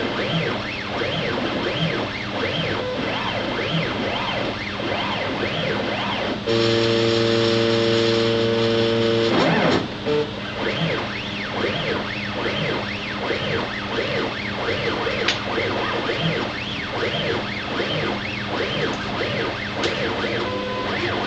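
Vexta stepper motors on a CNC router whining as the gantry runs a dovetail toolpath in an air cut, with the bit not touching wood. The pitch keeps rising and falling as the axes speed up and slow down, and a louder steady tone sounds from about a third of the way in for about three seconds, where the motion holds one speed.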